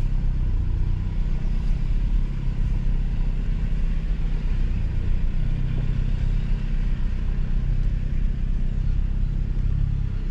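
Car engine and tyre noise heard from inside the cabin, a steady low rumble as the car drives slowly.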